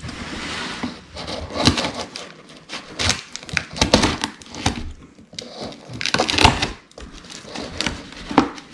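Scissors cutting through packing tape on a cardboard box: irregular snips and short noisy bursts as the tape and cardboard are handled.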